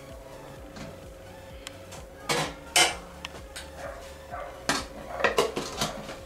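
Kitchen clatter of glass and utensils: two sharp clinks about two and a half seconds in, then a string of knocks and scrapes near the end as a plastic screw lid is put on a large glass jar and twisted shut.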